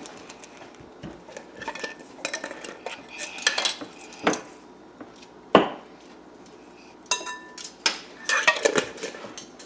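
Irregular knocks and clatter of a wooden masher against a glass mixing bowl as bananas are mashed, the loudest knock about halfway through. Ringing clinks of glass and metal come near the end as a glass jar and its lid are handled.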